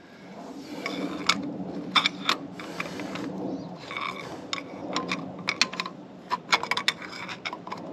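Hand ratchet clicking in short runs while a bolt on the engine's thermostat housing is turned, with small metal knocks; the clicks come thickest in the second half.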